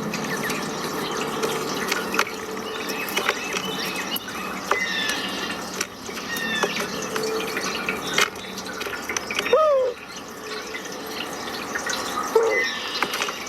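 Running water with small birds chirping throughout. About ten seconds in, a louder drawn-out call arches up and down in pitch, and a shorter one follows near the end.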